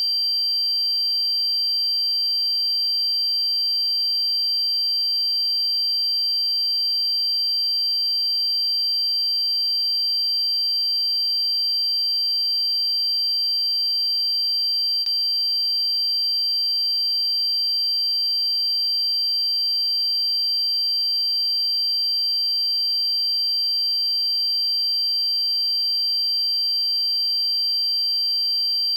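A single steady, high-pitched electronic tone held unbroken at an even level, with fainter steady tones above and below it.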